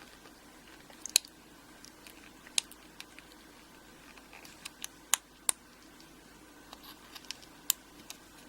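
Scattered small, sharp clicks and light scrapes of a tool working at the retaining clip on the back of a euro cylinder lock, trying to lever it off.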